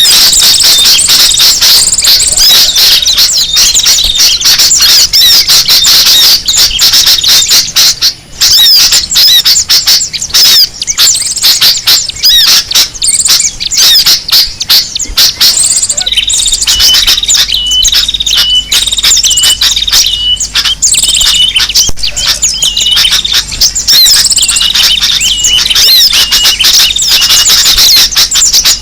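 Dense, loud chorus of small birds calling and chattering without pause, led by noisy sooty-headed bulbuls (kutilang): a bird-luring (pikat) recording. In the middle, one short high note repeats several times a second for a few seconds.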